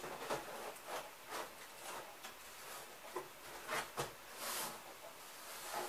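Cardboard being handled: light scrapes, rubs and taps as a large cardboard panel is held and pressed against a cardboard cabinet, with a sharper knock about four seconds in.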